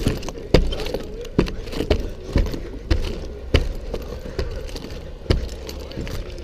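Lineman's climbing gaffs stabbing into a wooden utility pole while climbing down it: a steady run of sharp thuds, roughly one or two a second.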